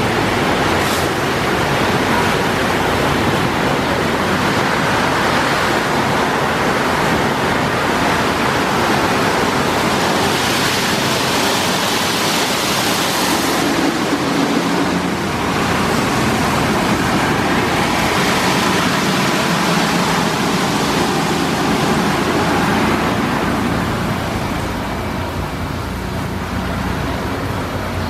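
Ceccato Aquarama Stargate S7 rollover car wash in its brush-wash stage: rotating brushes scrubbing a car under running water, making a steady, loud rushing noise that eases slightly near the end.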